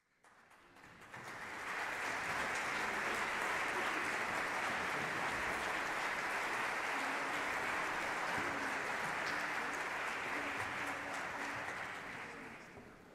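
Audience applauding in a theatre. The clapping swells over the first two seconds, holds steady, then dies away near the end.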